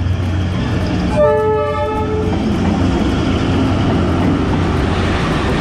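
Diesel locomotive of Vietnam Railways passing at very close range, its engine rumbling steadily. It gives one horn blast of about a second, starting a little over a second in. After that the passenger coaches roll by with a rough rumbling noise.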